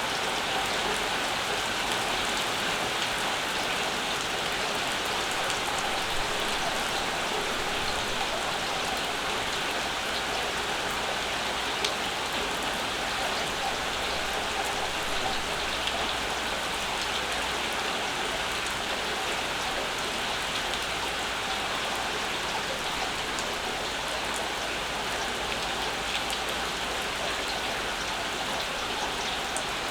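Steady summer rainfall, with a few single drops ticking sharply now and then.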